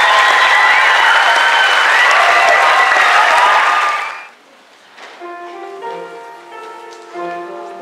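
Audience applauding and cheering loudly for about four seconds, then it cuts off abruptly and a soft instrumental introduction of long held notes begins.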